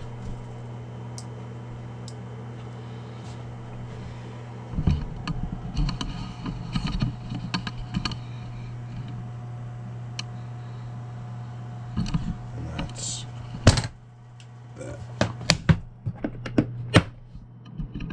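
Hard plastic Pelican 1400 case being handled: rustling and knocks against the case and its foam, then sharp loud clicks and knocks in the last few seconds as the lid is shut and latched. A steady low hum runs underneath.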